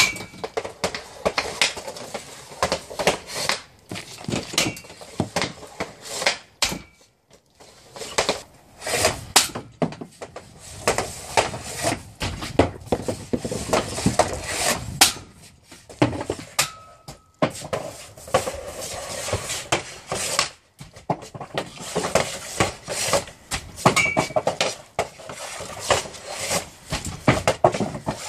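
Hockey sticks striking pucks on a plastic-tiled shooting pad, blade scrapes on the tiles and pucks clacking against wooden boards and other pucks: a run of sharp, irregular cracks and clatters, with a short lull about seven seconds in.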